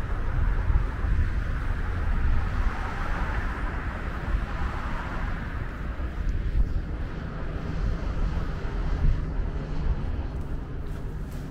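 Road traffic going by, with a steady low rumble throughout; a passing hiss swells and then fades out about halfway through.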